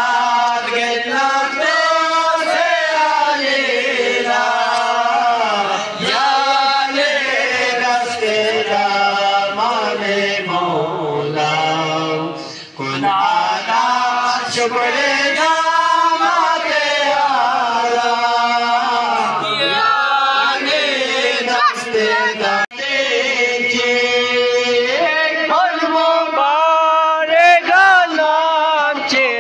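Unaccompanied male voices chanting a devotional qasida: a young man leads into a microphone while an older man and a boy sing along, with short breaks between lines.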